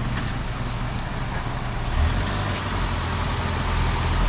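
A motor vehicle running with a steady low rumble, and a single thump about two seconds in.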